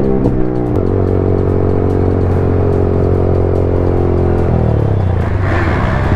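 Motorcycle engine under way. The revs jump up about a second in, hold steady for several seconds, then fall away near the end.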